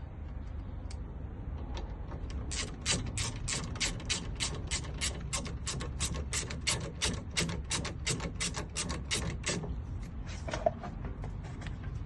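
Ratchet wrench clicking steadily, about four clicks a second for some seven seconds, as the 14 mm brake caliper bolt is tightened. A few scattered clicks come before the run and after it.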